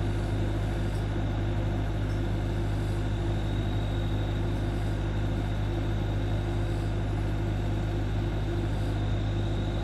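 Diesel engine idling steadily, with no change in speed.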